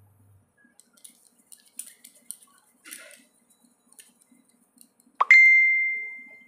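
Faint soft taps and rustles of hands pressing and rolling pitha dough into balls. About five seconds in, a sharp clink sets off a single high ringing tone that fades out over about a second.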